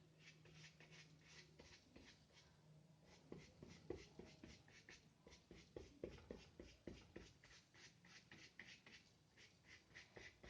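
Faint, quick brush strokes on paper, about four a second with a short pause: a wide, nearly dry brush carrying a little white gouache is being scrubbed over the paper to build up fur texture.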